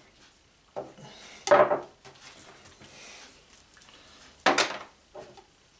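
A metal baking sheet clattering on a wooden table as a knife and a raw pork roast are handled on it: a few sharp knocks, the loudest about a second and a half in and again about four and a half seconds in, with quieter handling noise between.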